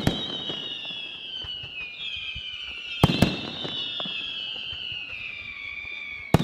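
Aerial firework shells bursting with sharp bangs: one at the start, a quick pair about three seconds in and another pair at the end. Under the bangs run high whistling tones that slowly fall in pitch.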